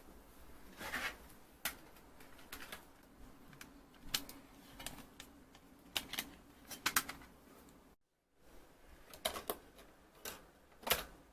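Scattered sharp clicks and short crinkles of a Toblerone's cardboard box and wrapping being handled, with a brief break about eight seconds in.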